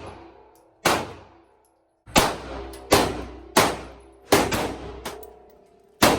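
Gunfire at a shooting range: about seven sharp shots at irregular intervals, each with a short ringing echo, over faint background music.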